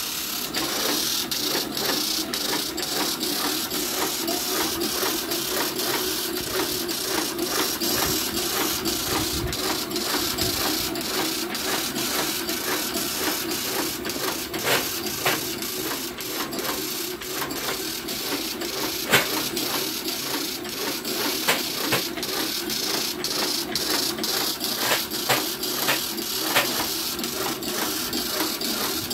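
Fully automatic agarbatti (incense stick) making machine running, feeding bamboo sticks and coating them with incense dough. It makes a steady mechanical hum with rapid, irregular sharp clicks several times a second.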